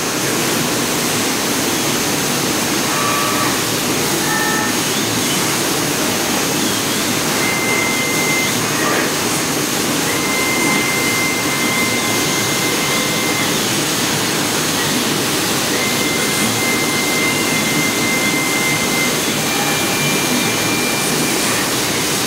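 Laser engraving machine at work marking a stone tile: a steady rushing noise of its air and fans, with a high thin whine that switches on and off several times as the head traces the design.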